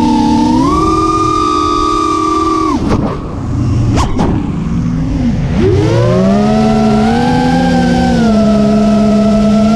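FPV quadcopter's motors whining, heard from the onboard camera, their pitch stepping up and down with the throttle. About three seconds in the throttle drops off briefly, with a couple of sharp clicks, then the whine climbs back and holds steady.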